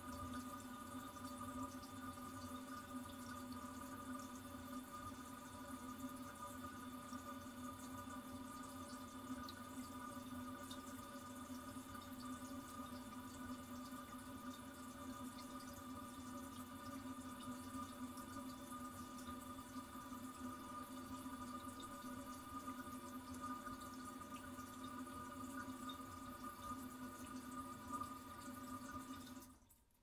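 Toilet cistern refilling after a flush, recorded very close: a steady hiss of running water with a steady hum of several tones in it, cutting off just before the end.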